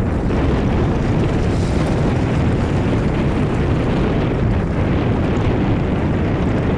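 Wind buffeting the microphone, a steady loud rushing noise with no distinct events.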